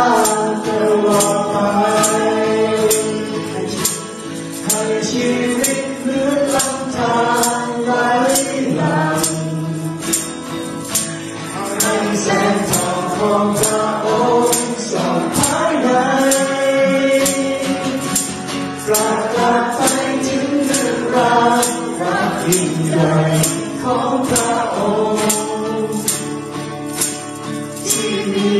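Worship song sung by a small group of men's and women's voices to strummed acoustic guitars, with a tambourine hit on the beat about twice a second.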